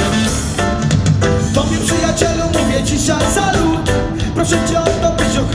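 A live reggae band playing, loud and steady: drums, bass and electric guitars with chords chopped in an even, quick rhythm.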